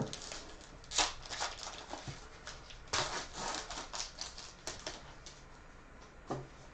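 Foil wrapper of a football trading-card pack crinkling as it is torn open by hand, in short bursts of rustling about a second in and again from about three to five seconds.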